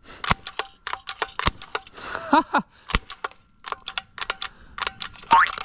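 Airsoft shotgun firing CO2-powered shells at a target: a quick run of sharp clicks and metallic pings, several a second.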